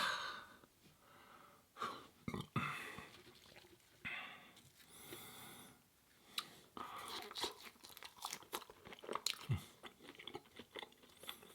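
A person chewing food close to the microphone: a few soft crunchy bites, then a long run of small wet mouth clicks in the second half.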